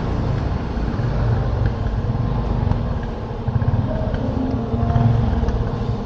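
Low, uneven rumble of running motor-vehicle engines.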